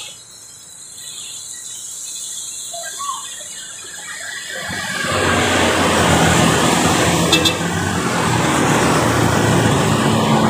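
Road traffic passing close by. The start is fairly quiet, then from about five seconds in a motor scooter and a car go past, and engine and tyre noise grows loud and stays there.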